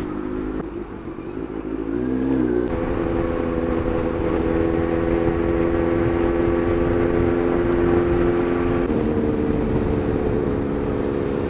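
Kawasaki Z900's inline-four engine pulling away, its pitch climbing about two seconds in and then holding steady, with a drop in pitch near the end as it shifts up a gear. A steady rush of wind and road noise runs underneath.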